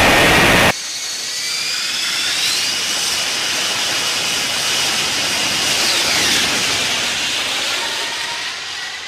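Lockheed Martin F-35B Lightning II jet engine: a loud roar that cuts off abruptly under a second in. It is followed by a high, whistling turbine whine over a hiss, with pitches gliding upward and then falling, that fades near the end.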